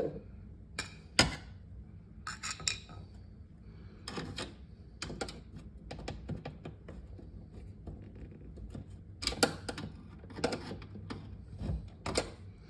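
Irregular metal clicks and scrapes of a flat-head screwdriver prying at the roller wheel's axle pin on a refrigerator, as it tries to work the pin out.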